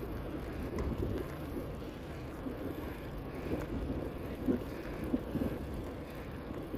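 Wind buffeting the camera microphone of a moving bicycle: a steady low rumble with a few brief louder gusts.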